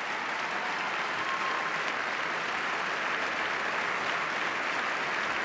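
Large hall audience applauding steadily, growing slightly louder as it goes on.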